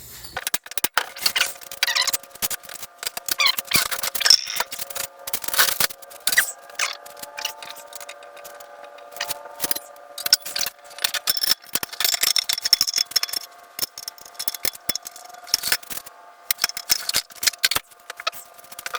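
Hand work on metal parts: irregular clicking, tapping and scraping of tools against metal, under a faint steady hum.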